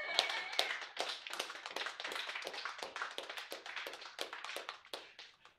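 A small audience applauding, with a whistle of cheering near the start; the clapping thins out and dies away near the end.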